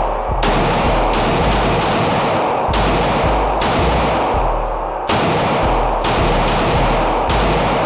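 A Glock 19 9 mm pistol being fired in quick, steady succession: about ten shots, roughly one every half to three-quarters of a second, with a short pause around the middle. Each shot rings on in the reverberant indoor range.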